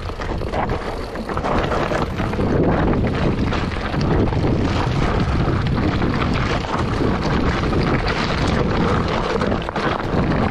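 Mountain bike rolling fast down loose rocky scree: the tyres crunch and rattle over stones and the bike clatters continuously, with wind rushing over the microphone.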